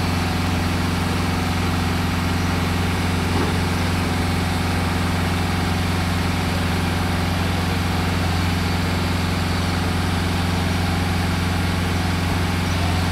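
Heavy diesel engine idling steadily, a constant low hum with no change in speed.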